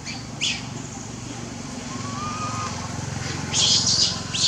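Short high bird chirps, once early and in a quick cluster near the end, with a brief thin whistle in the middle, over a steady low hum of a distant engine.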